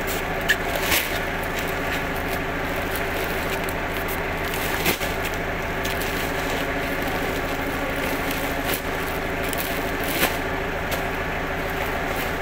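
Steady mechanical hum, with a few sharp rustles and knocks from woven sacks being lifted and set down on a stack, the first two within about a second of each other near the start and others around five and ten seconds in.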